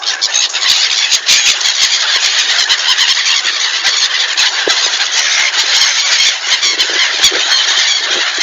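A large flock of birds calling all at once: a dense, continuous shrill chatter that never pauses.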